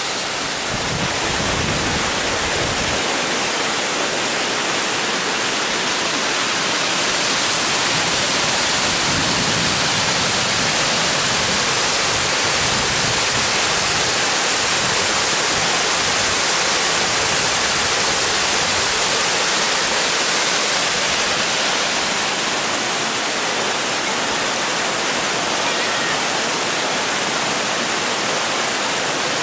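Steady rushing of a waterfall and the rocky stream below it: a dense, unbroken hiss of falling and running water, a little louder from about seven seconds in to about twenty-one seconds.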